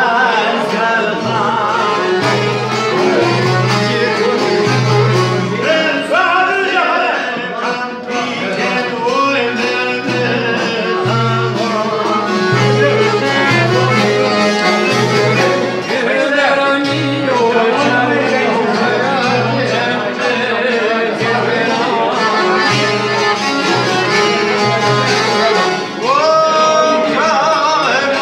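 Live Albanian folk ensemble playing a song: singing over violin, accordion and long-necked lutes, with a frame drum with jingles beating a steady low thump.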